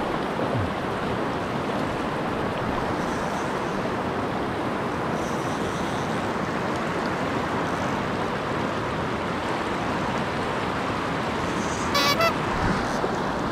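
Steady rush of river water flowing. Near the end comes a brief high-pitched sound with a few evenly spaced tones.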